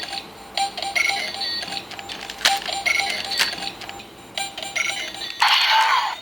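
DX Mega Ulorder (Kamen Rider Necrom's eye-drop-style transformation bracelet) playing its battery-powered electronic standby loop: a short jingle of tones repeating about once a second, with a couple of sharp clicks from the toy being worked, then a louder burst of the toy's transformation sound near the end.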